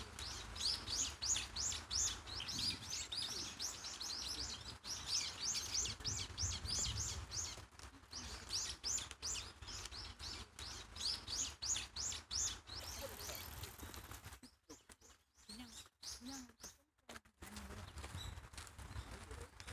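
Small birds chirping in quick runs of short, high, falling notes, several a second, over a low background rumble. The chirping thins out and goes quieter near the end.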